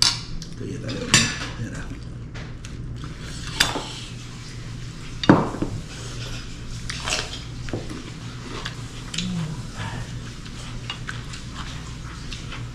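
Cutlery and dishes clinking now and then as people eat, with the loudest knock about five seconds in, over a faint steady low hum.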